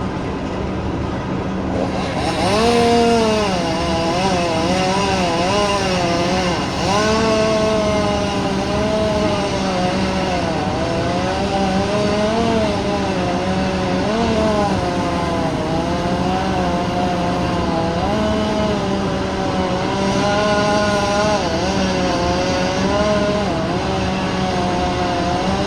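Chainsaw revved up about two seconds in and run at high speed while cutting wood, its pitch repeatedly dipping and recovering as the chain bites and bogs in the cut. A steady low engine drone runs underneath.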